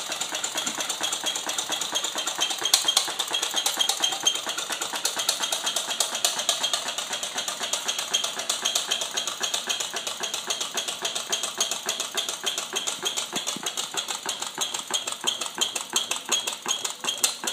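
Homemade soda-can Stirling engine running with a fast, even clatter from its can, cam and flywheel linkage, pretty loud. It has just been taken off its candle heat and keeps running as it cools, its beat spreading out a little near the end.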